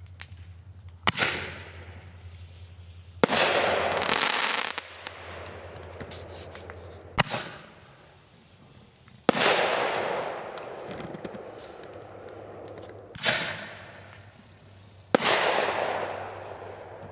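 Aerial fireworks bursting overhead: six sharp bangs two to four seconds apart, several of them trailing off into a long fading crackle.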